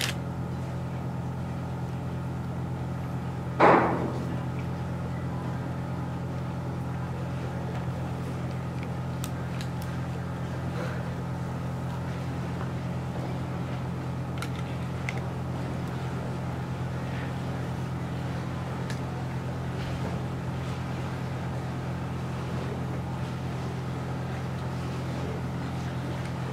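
Steady low mechanical hum, like an engine or machinery running, with one short loud sound about four seconds in.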